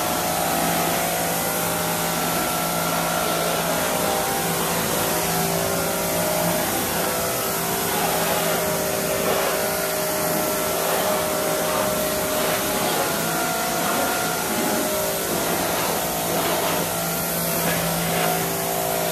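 Electric pressure washer running steadily, its motor humming under the hiss of the water jet as it rinses a motorcycle's wheels and fender.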